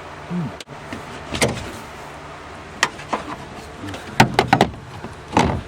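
Plastic interior trim being popped loose and moved aside by hand: scattered sharp clicks and knocks, with a quick run of four or five clicks about four seconds in, and short scrapes of plastic.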